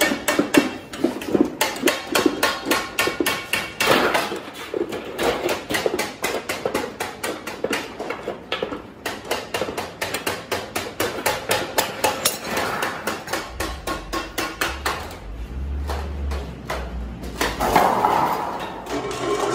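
Rapid, regular metallic knocking, about five strikes a second, like a hammer beating on sheet metal, running on steadily. A low hum joins it for a few seconds past the middle.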